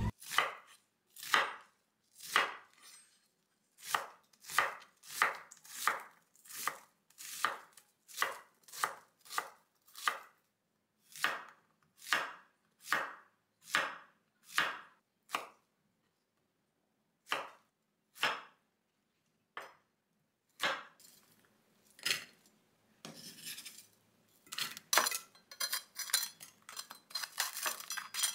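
Kitchen knife cutting onion and then zucchini on a bamboo cutting board, with steady strokes about one every 0.6 seconds. After a short pause the strokes grow sparser, and near the end comes a quicker, denser run of knife strokes and scraping.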